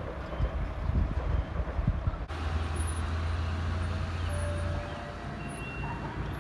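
Low rumble of a distant approaching commuter train, with gusts buffeting the microphone in the first two seconds. An abrupt cut about two seconds in leads to a steadier low hum.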